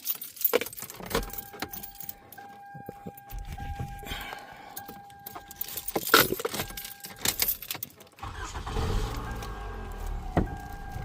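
Car keys jangling in the ignition over a steady on-off dashboard chime. About eight seconds in, the 2010 Toyota Camry's 2.5 L four-cylinder starts on its newly replaced starter and settles into a steady running rumble.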